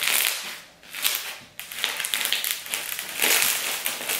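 Crunchy clear slime packed with sugar beads being squeezed and kneaded in the hands, giving a dense crackling crunch. The crunch comes in several swells, one with each squeeze.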